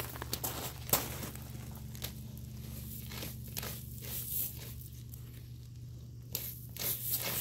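Huskies digging and pawing in loose gravel: stones scraping, crunching and clicking in irregular bursts, with a sharper click about a second in and a quicker cluster near the end.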